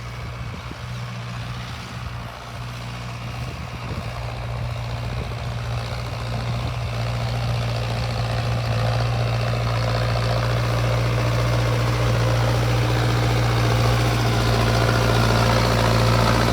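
Mahindra Arjun Novo 605 DI tractor's diesel engine running with a steady low hum, growing gradually louder.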